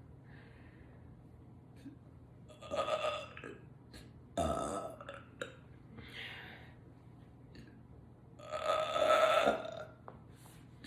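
A woman burping several times: a short burp about three seconds in, another a second and a half later, and the loudest and longest, about a second long, near the end.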